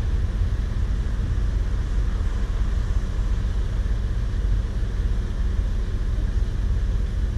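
Steady low rumble of a vehicle driving: engine and road noise.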